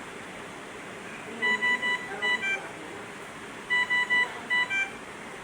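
Dräger Savina 300 ICU ventilator sounding its alarm tone: a group of five electronic beeps, three then two, with the pitch stepping between notes, played twice over a faint steady hiss. It sounds while the ventilator runs its start-up checks and calibration.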